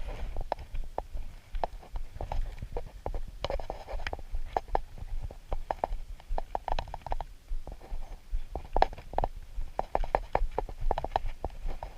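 Irregular light knocks and taps, several a second, over a low rumble.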